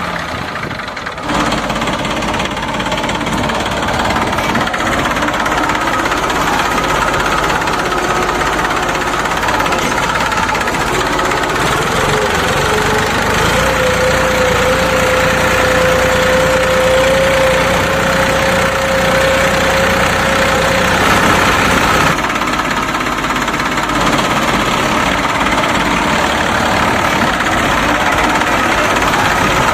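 Tractor engine sound running steadily at a knocking idle, changing abruptly about a second in and again about two-thirds of the way through. A steady whine sits over it through the middle.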